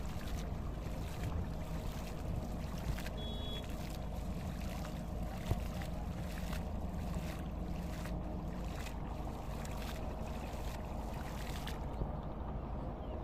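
Hand splashing and slapping shallow pond water, a splash every half second or so, stopping near the end.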